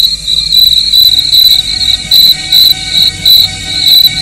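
Night insects chirping in a steady, high-pitched rhythm, about three chirps a second.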